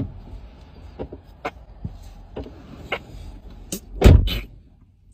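Low steady rumble inside a car's cabin with scattered light clicks and knocks, and one loud thump about four seconds in.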